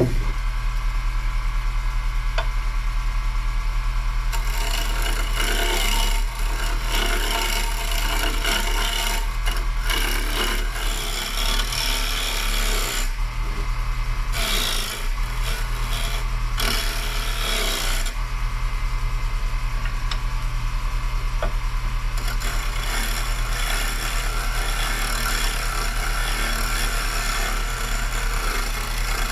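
Wood lathe running with a steady low motor hum while a carbide turning tool cuts into a spinning maple bowl blank. The rough scraping of the cut swells and eases as the tool is pressed in and backed off.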